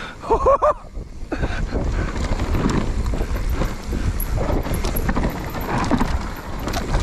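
Mountain bike descending a dirt forest trail at speed: wind buffeting the rider-mounted microphone, with tyres on dirt and the bike rattling and knocking over bumps.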